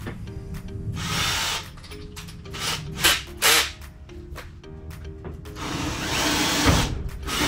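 Ryobi cordless drill boring holes into a wall in several runs: one about a second in, a few short quick bursts around three seconds, and a longer run near the end.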